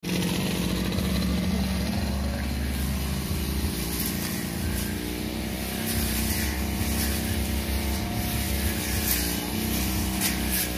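A 328-type two-stroke brush cutter running at high speed and cutting grass with a long 45 cm blade, a steady engine drone, with scattered sharp ticks in the second half.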